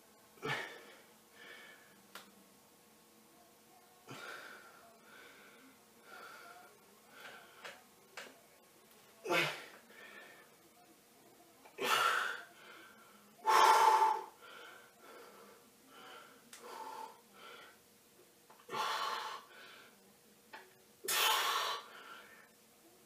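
A man breathing hard through a strained static hold, with about a dozen irregular sharp exhalations and gasps, the loudest in the second half. The effort of holding a side plank with his feet raised on a chair drives the breathing.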